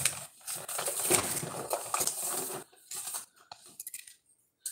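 Hands rummaging through a pile of small thrift-store jewelry: a dense rustling and crinkling for the first couple of seconds, then a few light clicks and clinks of small pieces that die away near the end.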